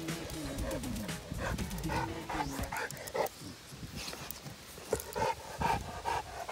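A Cane Corso panting in quick, rhythmic breaths, about two a second, clearest in the second half.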